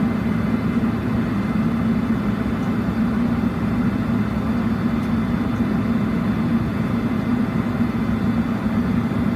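Steady low hum of a space station cabin's ventilation fans and machinery, constant and without a break.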